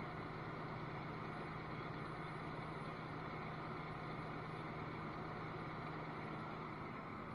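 Cummins ISL inline-six diesel engine running steadily at raised idle during a parked DPF regeneration, heard from inside the cab. A steady low hum within it stops near the end.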